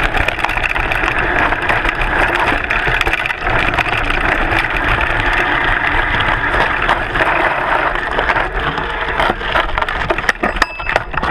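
Mountain bike's knobbly front tyre rolling over loose gravel on a downhill trail: a steady crunching hiss with scattered clicks and knocks of stones and the bike rattling. Near the end the hiss thins and separate clicks stand out as the bike slows.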